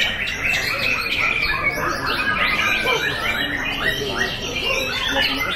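Many caged white-rumped shamas singing at once: a dense, unbroken chorus of overlapping whistles, chirps and gliding notes.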